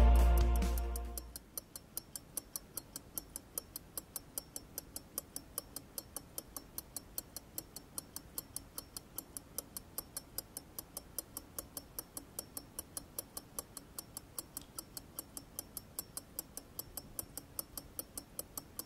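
Music fades out in the first second, then an antique pocket watch ticks steadily and evenly, about five ticks a second.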